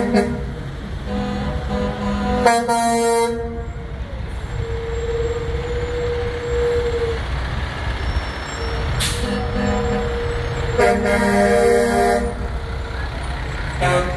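Parade vehicles sounding their horns over a steady low truck-engine rumble: several separate horn blasts, one a single steady tone held for about two and a half seconds near the middle, and a short loud hiss about nine seconds in.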